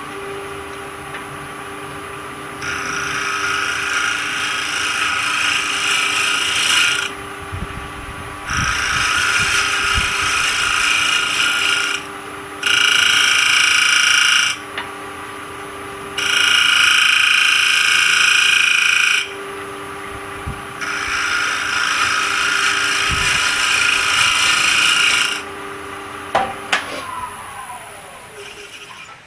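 Wood lathe running, with a tool pressed against the spinning walnut coaster blank in five passes of a few seconds each, loud rasping over the motor's steady hum and whine. Near the end the lathe winds down, its tone falling.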